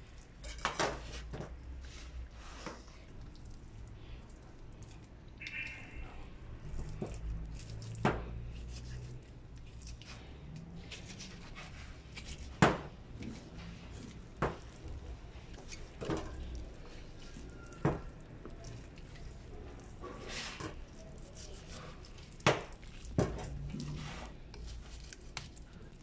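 Knife and hands working a raw chicken on a stainless-steel counter while deboning it: scattered sharp clicks and taps as the knife and bowl knock against the steel, with soft wet handling in between.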